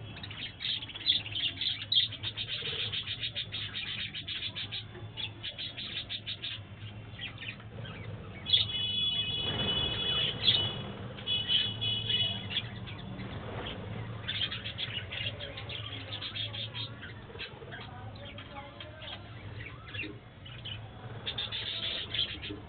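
A flock of budgerigars chirping and chattering continuously in quick, high notes, with a few longer whistled notes held steady about halfway through.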